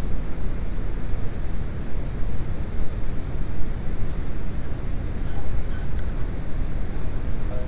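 Steady low rumble of background noise, with a few faint light ticks in the second half.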